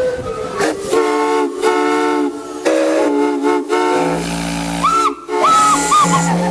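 Steam whistles blowing over a hiss of steam: three short chime-whistle chords of several notes sounding together, then a longer, deeper whistle with higher whistle notes bending up and down over it as the valves are worked.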